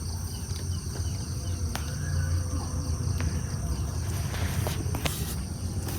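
Insects chirring steadily at a rural campsite, a continuous high-pitched drone, over a low rumble and a few faint clicks.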